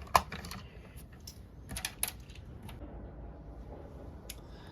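A handful of light, separate clicks and taps of small plastic toy parts being handled, the sharpest just after the start.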